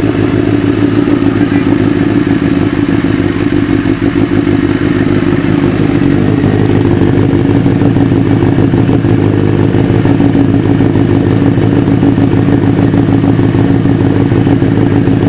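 Benelli TNT600's inline-four engine running at a steady idle through an Akrapovic slip-on muffler.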